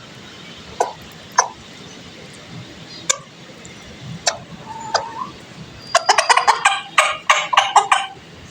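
Domestic fowl calling: a few scattered short calls, then about six seconds in a rapid run of short, repeated calls, about four or five a second.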